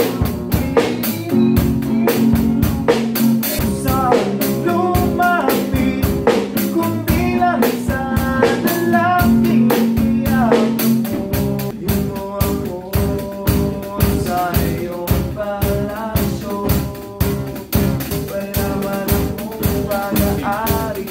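Live acoustic jam: a man sings over a strummed nylon-string guitar while a snare drum and cymbal are struck with drumsticks in a steady beat.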